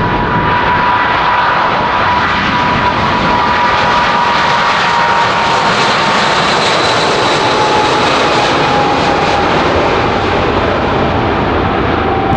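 Boeing 777-200 jet engines at takeoff power as the airliner departs: a loud, steady jet roar with a whine that slowly falls in pitch as it passes, fullest about halfway through.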